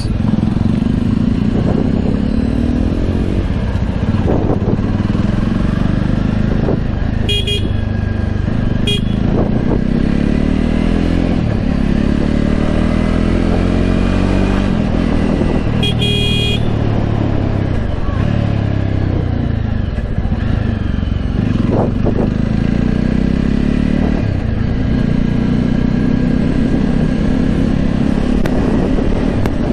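Jawa motorcycle's 293 cc single-cylinder engine and exhaust running under way in traffic, its bassy note rising and falling in pitch as the bike accelerates through the gears and eases off. A vehicle horn honks twice, about seven and nine seconds in, and once more for longer about sixteen seconds in.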